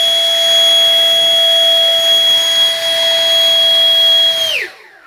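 RC model jet engine of a Mirage 2000 running at a steady high setting: a loud whine with a hiss over it. Near the end the whine drops sharply in pitch and cuts off.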